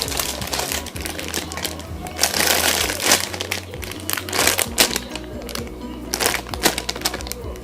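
Background music with a low bass line, over irregular crinkling and rustling as a foam squishy toy is handled.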